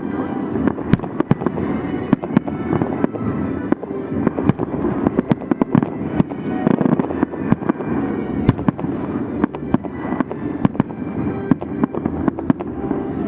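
Fireworks salute going off continuously: a dense, irregular rattle of sharp bangs and crackles, many reports a second, over a steady rumbling haze.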